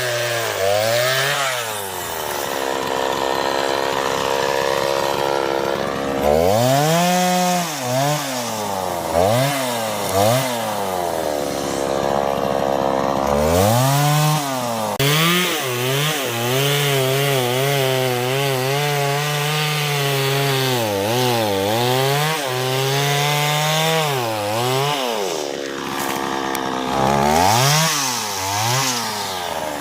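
Chainsaw engine revving up and dropping back again and again as it cuts wood, with a longer stretch in the middle where it runs steadier and lower in pitch under load in the cut.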